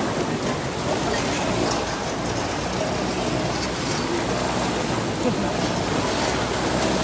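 Rushing, splashing water. A small boat engine's steady hum fades out at the start and comes back near the end.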